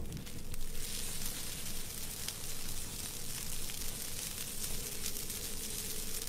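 Fire sound effect for a flame burning in an open hand: a steady sizzling hiss with a few faint crackles.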